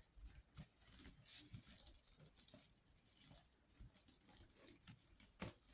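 Faint, irregular light crackles and taps from a dry twig bird's nest being handled and pressed onto a gel printing plate.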